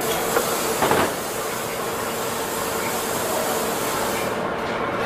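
Truck cab assembly-line factory noise: a steady hiss of air and machinery with a faint steady hum, and a couple of short clanks about a second in. The high hiss thins out near the end.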